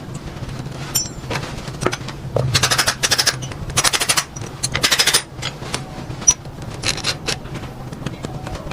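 Three short bursts of rapid mechanical rattling over a steady low hum, with scattered metallic clicks and clinks between them.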